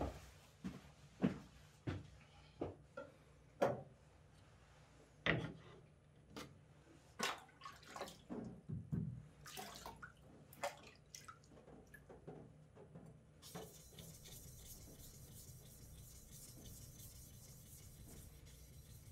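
Water splashed by hand from a tray onto a clamped whetstone, landing in irregular splashes and drips. About thirteen seconds in, a steady hiss takes over.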